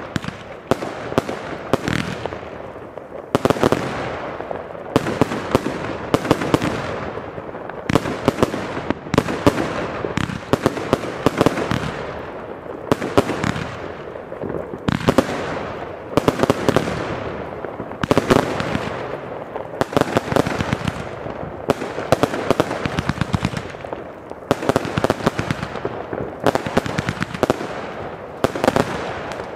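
Fireworks going off in dense succession: a continuous run of bangs and crackling, with louder booms every second or two.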